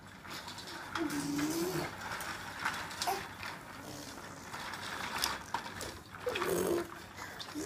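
Plastic baby walker rattling and clicking as its small castor wheels roll across a hard tiled floor under a baby's push. Short cooing sounds from the baby come about a second in and again near the end.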